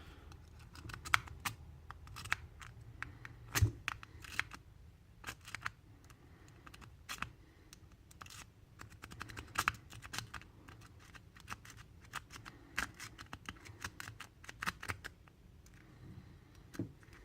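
Metal W rake being worked in and out of the keyway of a Delta discus padlock under tension, giving irregular light metallic clicks as it scrapes over the pin tumblers, with one heavier knock about three and a half seconds in. The lock stays shut.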